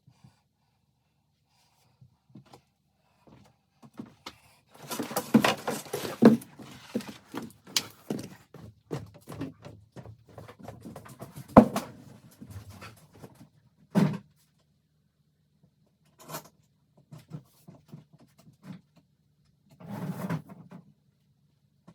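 Irregular knocks and thunks with bouts of scraping and rustling, like materials being handled and set down during renovation work, with a sharp knock about halfway through and another a couple of seconds later.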